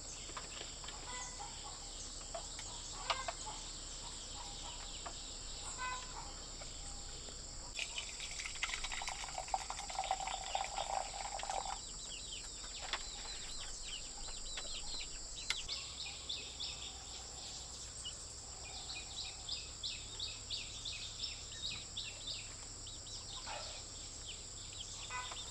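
Steady high-pitched drone of crickets with birds chirping in quick runs, and a chicken call about eight to twelve seconds in.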